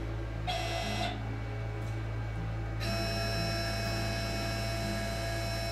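Stepper motors of a 6090 CNC router jogging the router head under keyboard control: a short whine about half a second in, then a steady whine of several fixed tones from about three seconds in, over a constant electrical hum.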